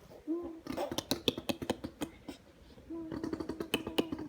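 Fart-like buzzing noises that a baby makes against tiles: a short one just after the start, then a longer one about three seconds in. Rapid clicks and taps on the tiles fall in between.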